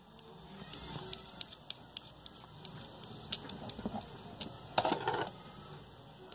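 Scattered light clicks and small knocks of fan-motor parts being handled and fitted together as the motor housing is closed up, with a louder burst of clatter about five seconds in.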